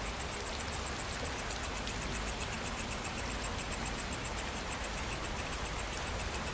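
Steady rain falling, with a rapid, even, high-pitched pulsing insect call over it; a second, lower insect call joins about halfway through.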